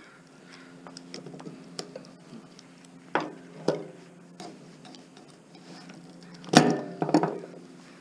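Hand tools clicking and clanking on the metal parts of a scrap electric motor as it is taken apart. There are small ticks throughout and four louder ringing metal knocks, the loudest about six and a half seconds in.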